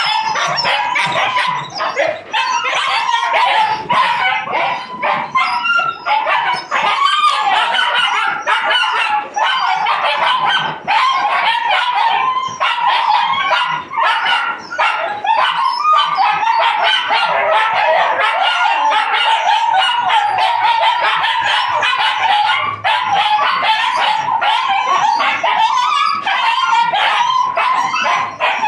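A litter of puppies yipping and barking all at once, a dense, unbroken chorus of high yelps as they clamour round a person.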